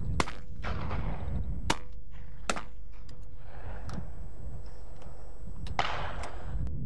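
Shotguns firing at driven pheasants: four sharp reports spread across a few seconds, each trailing off in a short echo, with fainter, more distant shots in between, over a steady low rumble.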